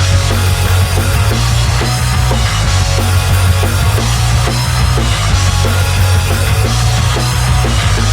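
Loud rock band music: drum kit, heavy bass and distorted guitars playing together, the full band coming in at once after a sparser drum intro.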